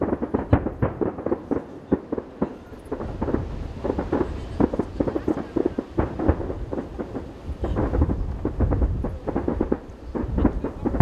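Fireworks display: shells bursting in quick succession, a dense run of bangs and crackles over a low rumble that grows heavier near the end.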